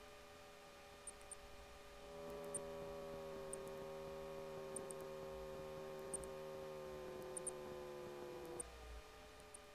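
WT9 Dynamic light aircraft's engine, a steady hum of several tones. About two seconds in it rises a little in level and pitch, and near the end it drops back.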